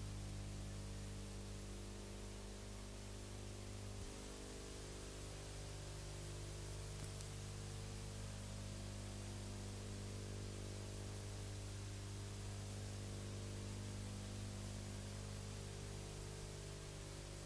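Steady electrical mains hum with a low buzz and its overtones, under a constant hiss of recording noise.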